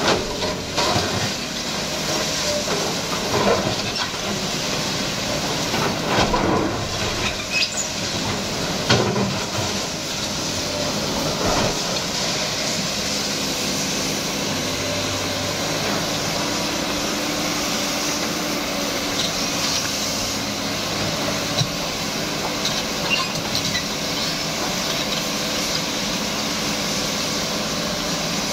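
Sany SY215C excavator's diesel engine running steadily as the machine works, with the bucket knocking and scraping on broken concrete several times in the first dozen seconds, then a steadier run of engine and hydraulic noise.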